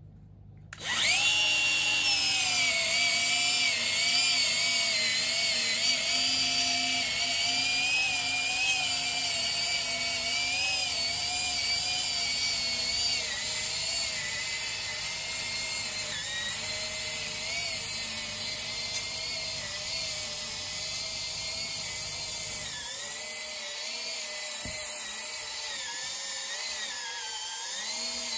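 DeWalt 18V (20V MAX) cordless angle grinder spinning up suddenly about a second in, then running steadily as its disc cuts a narrow slit through lawn turf. Its whine wavers slightly in pitch as it works along.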